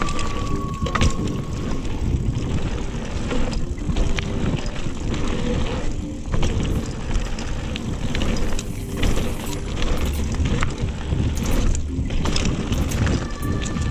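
GT Aggressor Pro mountain bike rolling fast down dirt singletrack: tyre roar and wind rushing over the camera microphone, with frequent clicks and rattles as the bike jolts over the trail.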